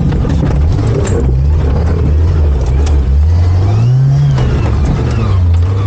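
Off-road 4x4's engine pulling under load, revving up about three seconds in and easing back a second later, heard from inside the vehicle, with short knocks from the vehicle working over the terrain.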